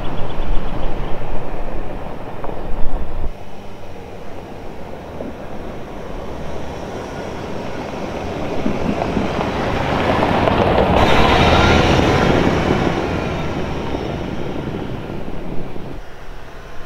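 Four-wheel-drive vehicle driving on a gravel track: a loud engine and tyre rumble for about three seconds, then a sudden change to a quieter rumble. The rumble swells as the vehicle draws near, peaks about two-thirds of the way through, and fades again.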